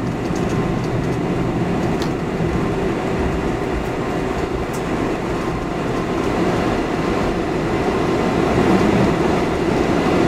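Cabin noise of a Boeing 747-400 rolling on the runway after landing: a steady, dense rumble of the wheels and engines, growing a little louder over the last few seconds.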